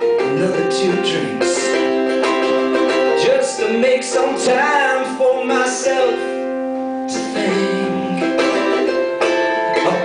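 Ukulele played live with a man singing along.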